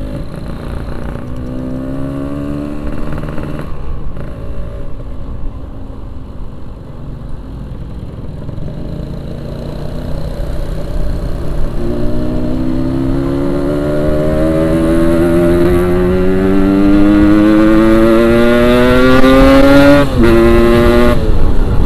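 Yamaha RX-King 135cc two-stroke single-cylinder engine running under way. Its pitch climbs steadily and grows louder through the second half as the bike accelerates. It drops suddenly near the end, at a gear change.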